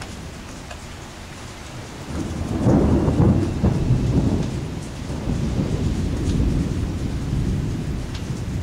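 Thunder rolling: a low rumble swells about two seconds in, is loudest for a second or so, then rumbles on and slowly fades toward the end.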